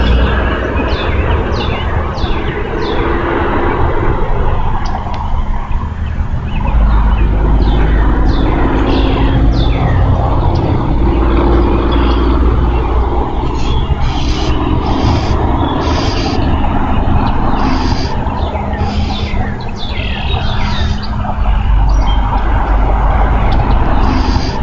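Birds chirping outdoors in a run of short, quick, falling notes repeated throughout, with some harsher high calls in the second half, over a steady low rumble of wind or distant traffic on the microphone.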